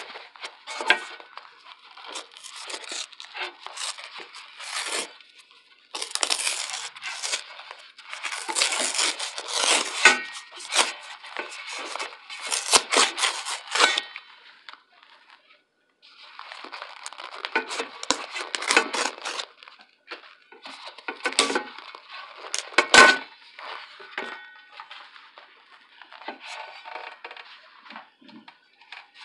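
Cardboard box and paper wrapping being torn open and rustled by hand to unpack a cornstarch brick, in stop-start bursts of tearing and crinkling with many small clicks. There is a pause of about two seconds near the middle, and a single sharp knock comes a little later.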